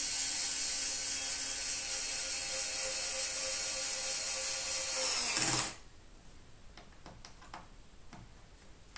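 Small cordless screwdriver running steadily, driving in a screw that holds the subwoofer's woofer driver in its cabinet. The motor whine cuts off about five and a half seconds in, followed by a few faint handling clicks.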